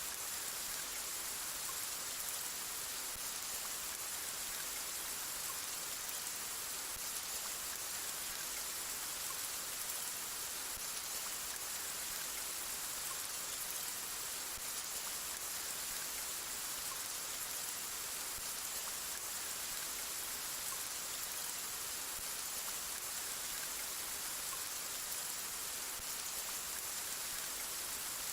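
Steady rainfall: an even hiss of many drops with no let-up and no thunder.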